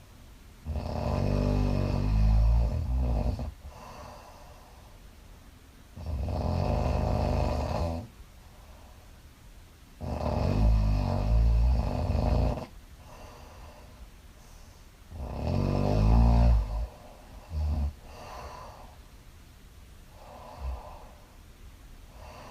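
A woman snoring in her sleep: four loud snores about every four to five seconds, followed near the end by a short burst and quieter breaths.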